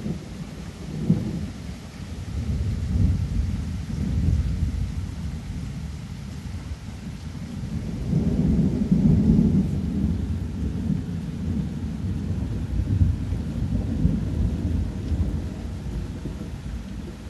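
Thunder rumbling low over steady rain during a thunderstorm, swelling to its loudest about halfway through and easing off near the end.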